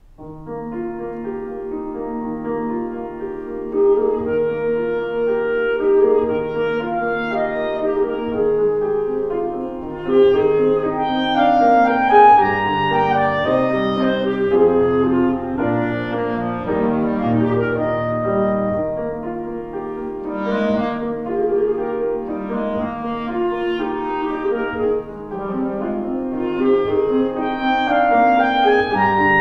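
Clarinet playing a classical melody with piano accompaniment. The music begins right at the start, as the opening of a new movement.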